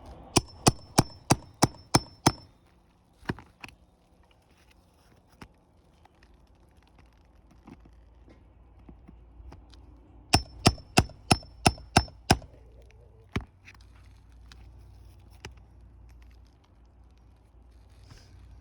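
Hammer striking a steel nail pull in quick runs of about seven blows, roughly three a second, driving it under roofing nails in asphalt shingles to get them out; the blows ring with a high metallic ping. Two such runs come about ten seconds apart, with a few single knocks between.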